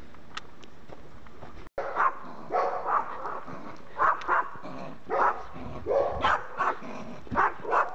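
A dog barking repeatedly, about a dozen short barks often coming in pairs, starting about two seconds in.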